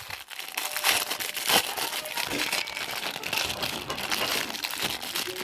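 Packaging crinkling and crackling in irregular small clicks as it is handled and cut with a small knife.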